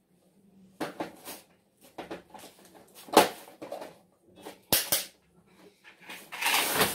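Hard plastic parts of a Paw Patrol Mighty Pups lookout tower toy knocking and clicking as the tower section is fitted onto its base. Scattered sharp clacks, the loudest about three seconds in, then a longer burst of handling noise near the end.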